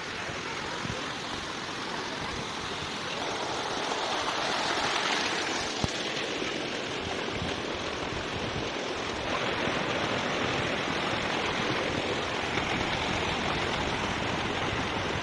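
Waterfall rushing steadily, a dense, even sound of falling water that grows a little louder after about three seconds. A single sharp click about six seconds in.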